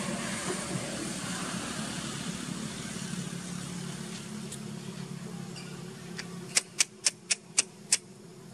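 A motor vehicle's engine humming steadily, then fading away, followed near the end by a quick run of six sharp clicks, about four a second.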